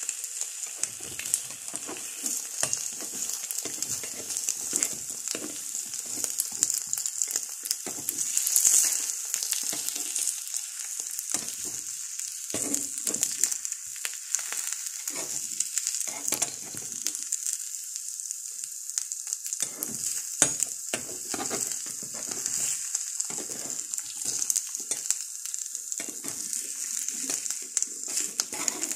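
Eggs frying in butter in a frying pan, sizzling and crackling steadily, with intermittent soft knocks.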